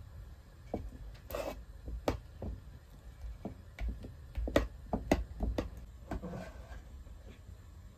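Metal ladle knocking and scraping against an aluminium bowl as thick pudding is scooped out and spooned into glass dessert cups: an irregular string of sharp clinks with a couple of short scrapes.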